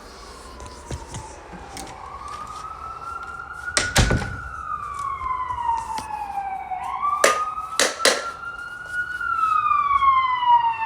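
Emergency vehicle siren wailing, its pitch sweeping slowly up and down and getting louder as it comes closer. A few sharp knocks cut through it, the loudest about four seconds in and a pair near eight seconds.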